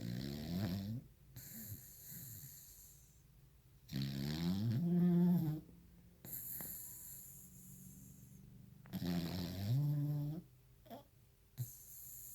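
Dog snoring in deep sleep: three loud, pitched snores about four to five seconds apart, each rising in pitch, with a hissing breath between them.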